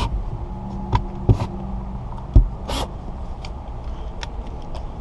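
A cordless drill driving a windshield cut-out tool stops right at the start. Scattered knocks and clicks follow as the drill and tool are handled, the loudest a thump about two and a half seconds in, with a brief scrape just after.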